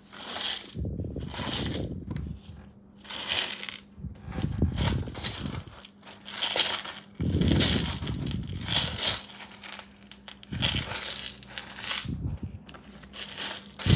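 Gloved hands stirring and sifting through a plastic parts bin heaped with small loose metal screws: a shuffling rattle of many screws clinking and sliding over one another, in repeated irregular bursts as the hands dig and pause.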